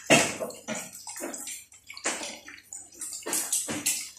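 Chicken pieces deep-frying in hot oil in a pot: a steady sizzle broken by irregular loud crackles and pops of spattering oil.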